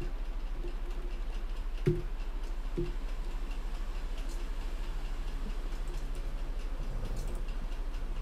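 Steady low electrical hum from the recording setup, pulsing in a fast regular flutter. Two short clicks come about two and three seconds in.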